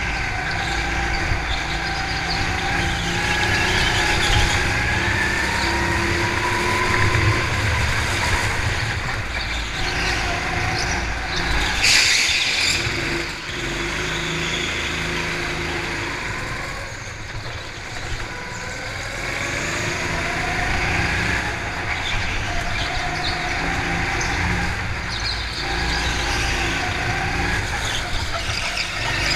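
Go-kart engines running at speed, their pitch rising and falling again and again as the kart accelerates and lifts off through the corners. A short, loud noisy burst comes about twelve seconds in.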